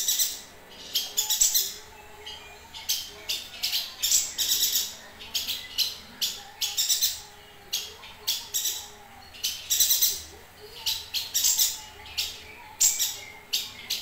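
Caged yuhina singing: quick runs of high, thin chirping notes repeated in short bursts with brief gaps between them.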